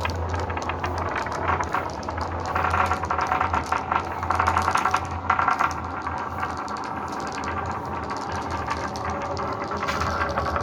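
Marbles rolling and clattering down a marble run track: a continuous rattle of small clicks and knocks, with louder spells of clatter a few seconds in.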